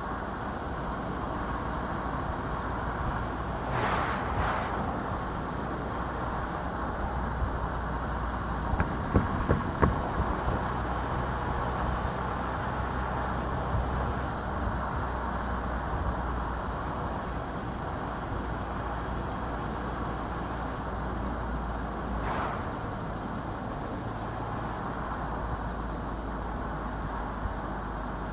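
A car driving on a road: steady low rumble of engine and tyres. There is a brief rushing whoosh about 4 seconds in and another near 22 seconds, and a few sharp knocks around 9 to 10 seconds in.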